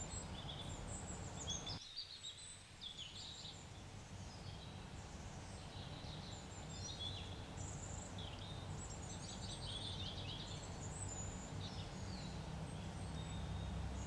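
Birds chirping faintly in the background, with many short, quick calls scattered throughout over a low, steady background noise.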